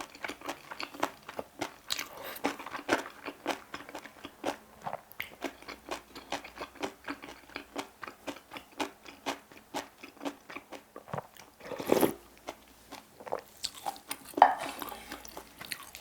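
Close-up chewing of bibimbap, a steady run of crisp, crackly crunches from the seasoned vegetables, a few per second. A louder brief noise about twelve seconds in and a sharp one a couple of seconds later.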